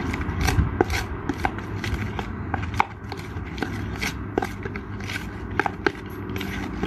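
Spoon stirring icing sugar and food colouring in a clear plastic tub, clicking and scraping against its sides in a quick, irregular run of small ticks.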